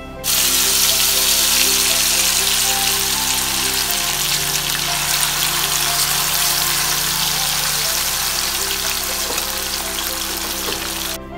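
Spice-coated potato sticks frying in hot sunflower oil, with a loud, steady sizzle. It starts suddenly about a third of a second in, as the potatoes hit the oil, and stops suddenly just before the end.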